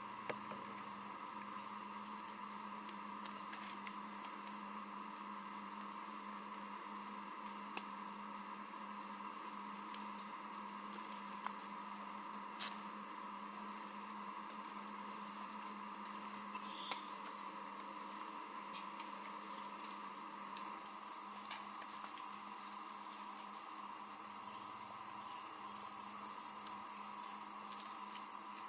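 Steady chorus of jungle insects, with high, unbroken buzzing and chirring that grows a little louder about two-thirds of the way through. A few faint clicks are scattered through it.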